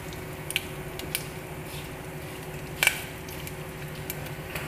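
Corn kernels popping in a little oil in an aluminium pot, with the popping just beginning: a few scattered sharp pops, the loudest nearly three seconds in, over a steady low hum.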